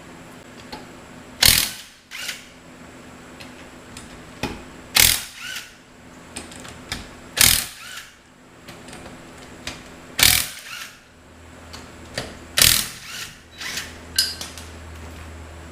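Metal hand tool working on the truck's wheel: a sharp metallic clack about every two and a half seconds, five in all, each followed by a few lighter ratchet-like clicks.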